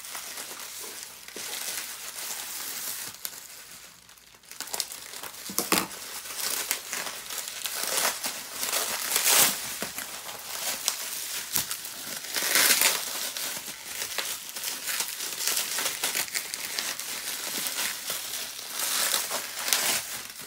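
Plastic bubble wrap crinkling and rustling as it is cut open with scissors and pulled apart by hand, in irregular spurts, with a brief lull about four seconds in.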